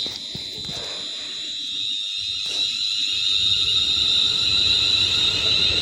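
Train moving at the platform: a high-pitched steady whine with a few wavering tones above a low rumble that slowly grows louder.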